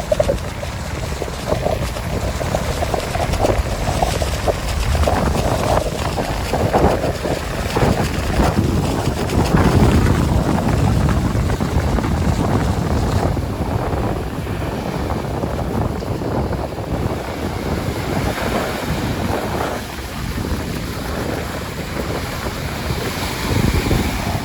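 Strong wind buffeting the microphone, rising and easing in gusts, over Baltic Sea surf breaking on the beach.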